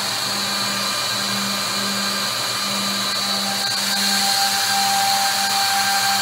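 Brandt Ambition 1650CF edge banding machine running, its motors giving a steady high whine over a pulsing hum. About four seconds in, a further tone joins and it grows slightly louder.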